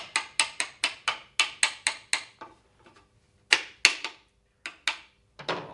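Hammer tapping on a wooden panel: a quick run of about ten light taps, roughly four or five a second, then a few louder strikes spaced further apart.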